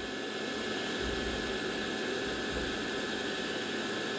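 Steady background hiss with a faint high hum, no distinct event.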